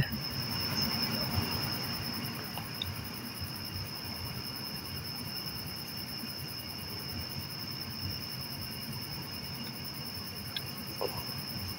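Crickets chirring in a steady, high, even chorus, with a faint click or two near the end.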